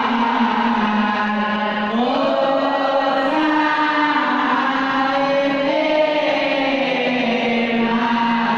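A group of boys and men chanting marhaba, the sung Arabic praise of the Prophet Muhammad, in unison, with one voice carried through a microphone. The chant moves in long held notes that glide up and down between pitches.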